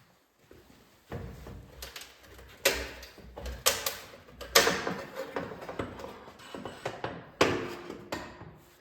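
Metal parts clanking and rattling as exhaust hardware is handled: five or so sharp knocks, each trailing off in a rattle.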